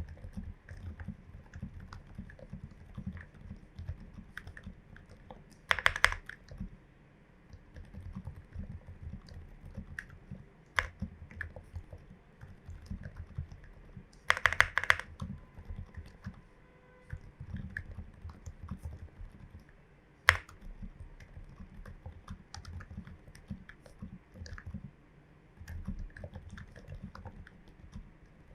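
Steady typing on a Glorious GMMK Pro mechanical keyboard with lubed, filmed switches and MT3 keycaps, mostly dull, muted keystrokes. A few sharper, louder clacks stand out about 6, 14 and 20 seconds in.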